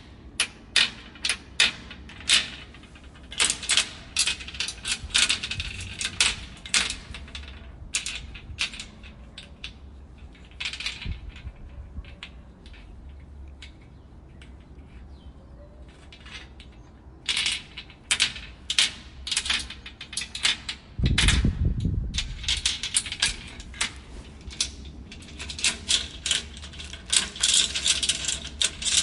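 Metal chains and padlocks being handled: chain links jingling and clinking in quick clusters, with sharp clicks, a quieter stretch in the middle, and one heavier low thud about two-thirds of the way through.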